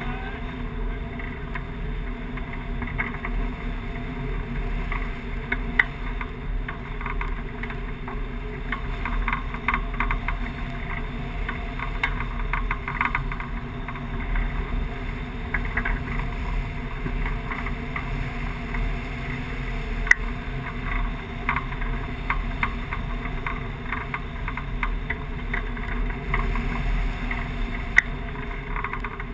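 Steady rush of airflow over a hang glider in flight, buffeting the wing-mounted camera's microphone, with a few sharp ticks scattered through it.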